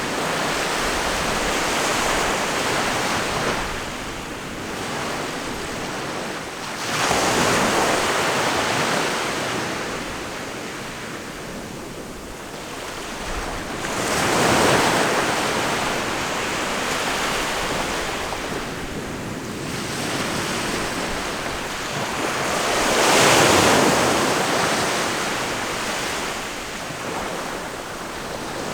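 Ocean waves breaking and washing in. Three larger waves come through, each a rushing surge that swells and fades over a few seconds, with a softer wash of surf between them.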